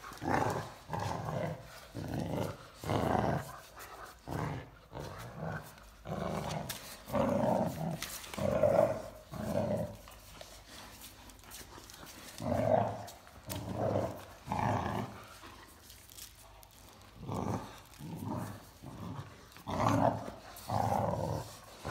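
Great Danes growling playfully in short repeated bursts while tugging on a rope toy, with a couple of brief quieter pauses: play growling during tug of war, not aggression.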